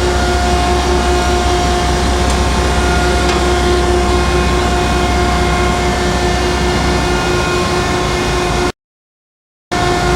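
1969 Landis 1R universal cylindrical grinder running under power: a steady low hum with a steady whine on top. The sound drops out completely for about a second near the end.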